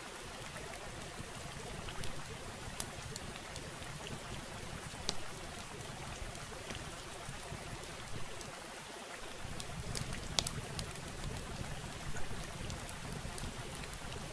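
Steady hiss over a low rumble, with scattered small clicks and crackles. The rumble drops away briefly about nine seconds in, then returns.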